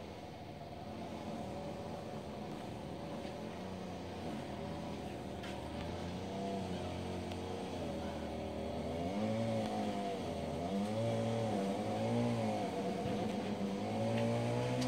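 An engine running, its pitch swinging up and down again and again and growing louder from about halfway through.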